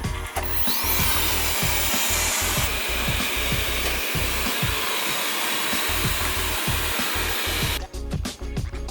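Robot vacuum's suction fan spinning up with a short rising whine and then running as a steady, loud rushing hiss as the cleaning run starts; it cuts off suddenly near the end. Background music with a steady beat plays underneath.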